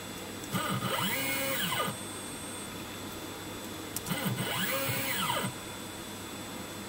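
Stepper motor driving the X axis of a JLW T1 CNC milling machine along its ball screw: two short moves, each a whine that rises in pitch and falls again as the axis speeds up and slows down, about a second and a half long and some three seconds apart. This is the axis jogging 5 mm out and back to zero in a repeatability and backlash test.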